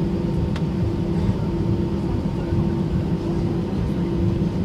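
Steady cabin noise inside an Airbus A320 on the ground after landing: a constant low rumble with a steady hum. There is a faint click about half a second in.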